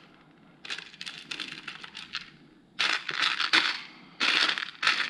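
Loose plastic building-brick pieces rattling and clicking against each other as a hand rummages through a pile of them, in several short bursts of clatter.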